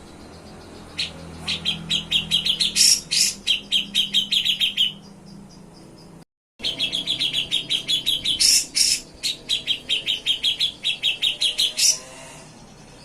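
Grey-cheeked bulbul (cucak jenggot) singing in fast runs of sharp, repeated chipping notes, about six a second, with louder, higher notes mixed in. The sound cuts out to silence for a moment about six seconds in, then the rapid trilling runs go on.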